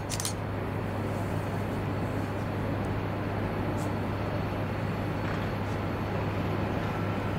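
Steady vehicle rumble with a constant low hum, opened by a couple of sharp clicks.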